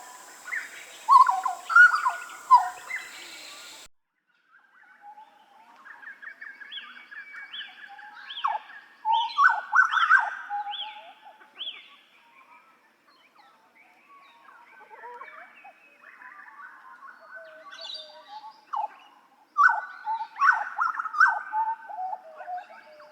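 Butcherbird (jagal Papua) singing: loud, varied phrases of clear notes and chatter, with a run of about six short repeated notes in the middle and a loud burst of song near the end. The recording cuts off abruptly about four seconds in before the song resumes.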